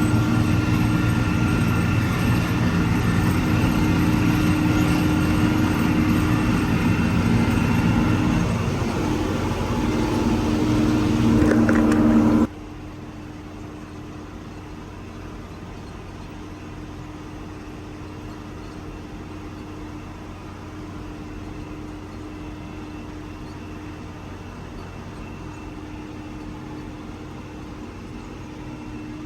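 Vehicle engine running steadily and loud for about twelve seconds, then cutting suddenly to a much quieter, steady engine hum.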